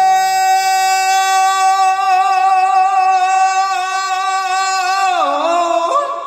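A man singing one long, high held note, a wobble of vibrato coming in about two seconds in and the pitch sliding down near the end before it fades. A strummed guitar chord dies away under the voice in the first second.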